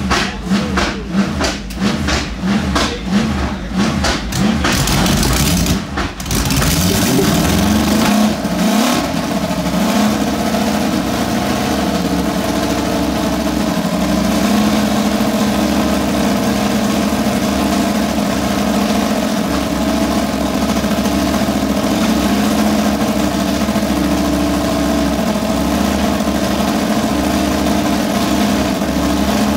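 Mercedes W196R's 2.5-litre straight-eight racing engine warming up from cold. It runs unevenly in pulsing surges for about the first six seconds, revs up briefly, then settles into a steady, even run.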